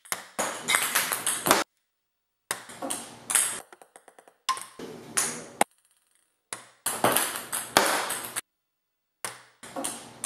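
Ping-pong balls from missed throws bouncing on a beer pong table, in five short bursts of quick bounces, each cut off abruptly by silence. Around the middle, one run of bounces speeds up as a ball settles.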